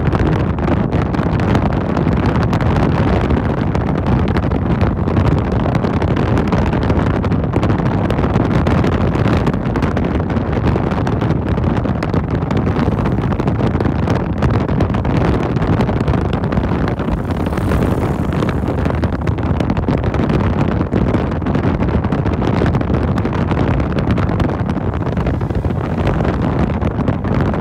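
Motorcycle riding at speed: a steady, loud rush of wind on the microphone over the rumble of engine and road.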